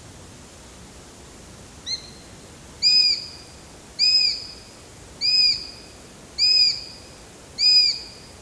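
Eurasian sparrowhawk calling: a short note, then five drawn-out, arching calls evenly spaced about a second apart.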